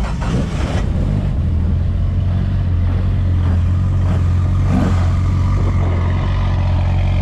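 A car engine running at steady, unchanging revs close by: a low, even drone that strengthens about a second in and then holds.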